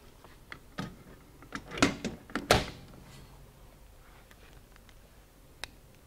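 Plastic and metal clicks and clunks as a CBS ArcSafe CS01 remote switch actuator is fitted over a breaker control switch on a steel switchgear panel: a few knocks in the first three seconds, the loudest about two and a half seconds in, and one small click near the end.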